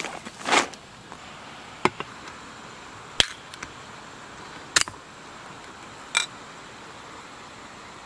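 A short rustling burst, then four sharp clicks or knocks about a second and a half apart, over a steady faint hiss.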